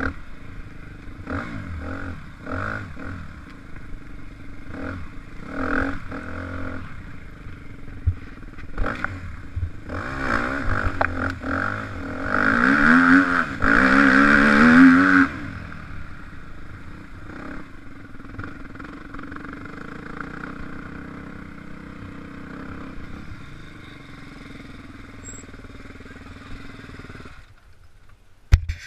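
Dirt bike engine revving up and down as it rides a dirt track, loudest while accelerating hard about halfway through, then idling lower as the bike slows and stops.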